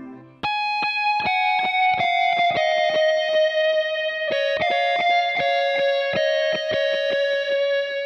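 Electric guitar notes played through a Copicat-style tape echo with all three playback heads on. From about half a second in, a few high notes step down in pitch, each smeared into a dense run of repeating echoes that keep ringing after the playing stops.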